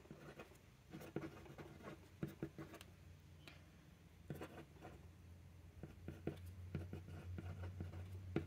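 Fountain pen nib scratching and ticking faintly across thin paper as words are handwritten, in short irregular strokes.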